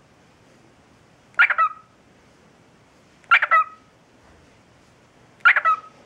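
Pet cockatiel giving three short talking calls about two seconds apart, his mimicked "peek-a-boo".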